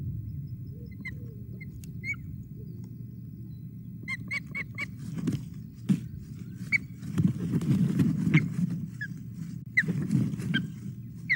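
Osprey calling in short, high whistled chirps, with a quick run of four about four seconds in. Its wingbeats as it flaps on the nest add louder low thuds between about seven and eight and a half seconds and again near ten, over a steady low rumble.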